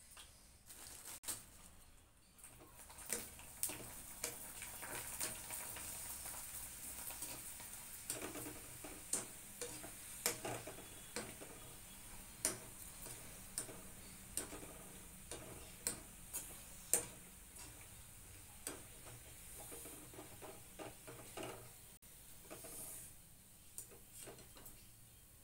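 Colourful dried fryums (nali) deep-frying in hot oil in a small kadai, sizzling steadily from about two seconds in, with frequent sharp clicks of a wire-mesh skimmer against the pan as they are stirred and lifted out.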